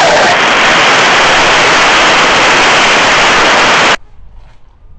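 Loud, even hiss of radio static from an open radio channel, cutting off suddenly about four seconds in.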